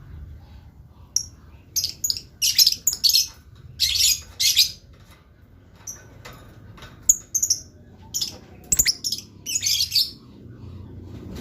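Blue lovebird chattering: rapid clusters of shrill, high-pitched chirps and screeches, with a short lull midway.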